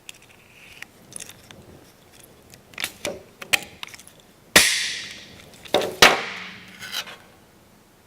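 Hand pop rivet gun working rivets into sheet metal: light clicks of handling, then two sharp loud snaps about a second and a half apart, each followed by the sheet metal ringing as it dies away.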